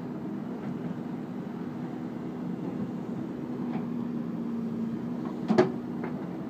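Backhoe loader's diesel engine running steadily with a low, even hum. A single sharp knock comes about five and a half seconds in, with a couple of fainter ticks around it.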